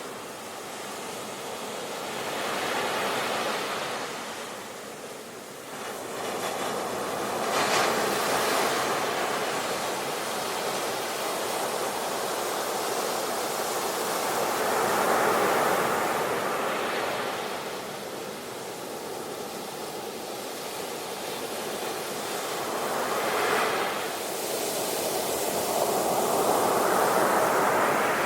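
Sea waves breaking, about five surges rising and falling several seconds apart over a constant hiss of surf.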